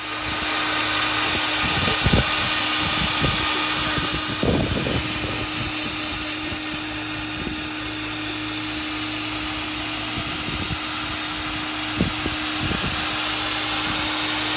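CS Unitec MAB 485 magnetic drill running steadily under load while drilling through a titanium I-beam: a constant motor hum with a thin high whine over hiss, broken by a few short knocks.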